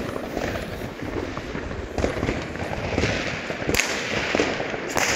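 Several consumer fireworks going off at once: a dense run of rapid pops and crackles, with louder bangs about two, three and four seconds in.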